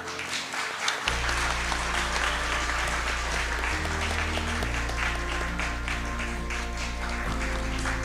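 Audience applauding over background music, with the music's low notes coming in about a second in.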